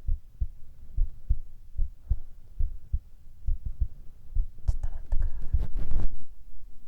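Human heartbeat, a steady lub-dub of paired low thumps a little under a second apart. A rustling noise joins in from about four and a half to six seconds in and is the loudest part.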